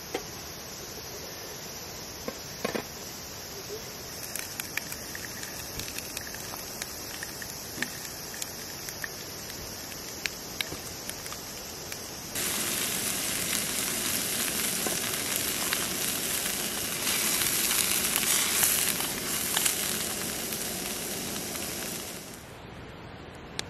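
Green peppers sizzling in a frying pan on a camp gas burner. The sizzling starts suddenly about halfway through and drops away near the end. Before it there is a quieter steady hiss with scattered small ticks and crackles from a mess tin heating over a solid-fuel stove.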